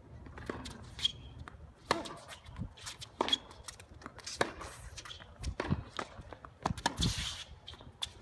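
Tennis rally on a hard court: sharp racquet-on-ball hits a couple of seconds apart, with players' footsteps and shoe squeaks and scuffs on the court surface between shots.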